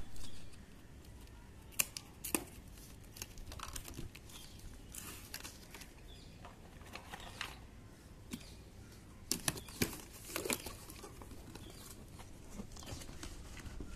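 A cardboard carton being unpacked by hand: plastic packing straps snipped off and the cardboard flaps pulled open. Irregular snips, clicks and cardboard rustling, a few louder snaps about ten seconds in.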